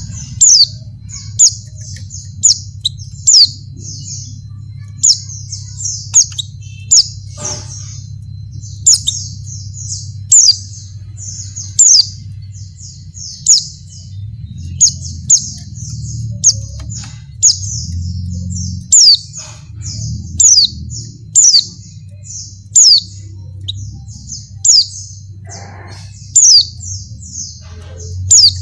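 White-eye (pleci) twittering: a rapid, unbroken stream of high chirps, with louder sharp downward-swept notes every second or so, over a steady low hum. The uploader presents it as a female white-eye in breeding condition calling to males.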